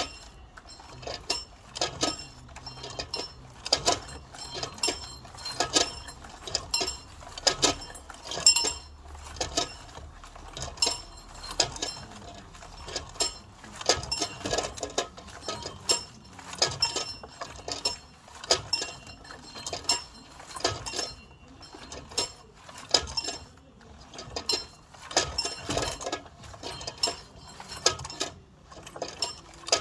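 A bell on a rope being rung, its clapper striking again and again at an uneven pace, several strikes a second, each with a short high ring.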